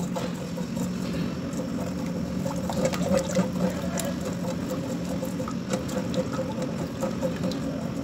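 Silicone spatula stirring sugar and water in a steel pan, with undissolved sugar grains scraping against the bottom as the syrup starts to cook. A steady low hum runs underneath.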